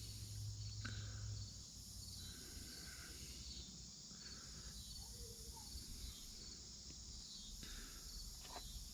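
Faint insect chorus: a steady high trill, with a higher buzzing that comes and goes every second or two. Soft scratching of electrical tape being picked and peeled from a rifle stock is heard now and then.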